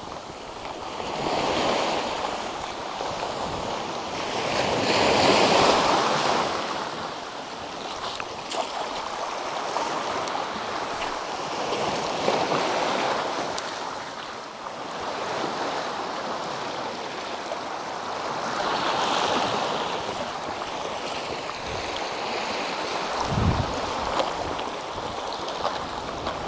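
Small sea waves breaking and washing up a sandy and rocky shore, the surf swelling and falling away every few seconds. A short low thump comes near the end.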